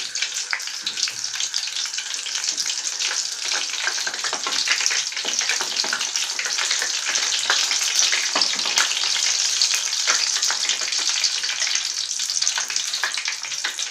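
Batter-coated shrimp deep-frying in hot oil: a steady dense sizzle with many small crackling pops.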